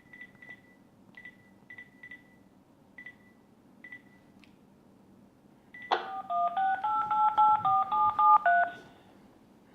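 Phone keypad beeping as a number is keyed in, about nine short single beeps at uneven intervals. About six seconds in, a click is followed by a quick run of about ten touch-tone (DTMF) dialing tones as the call is placed, louder than the key beeps.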